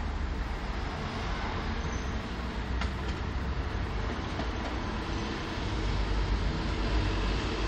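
Modern articulated tram running slowly along its track, a steady low rumble that grows a little louder near the end.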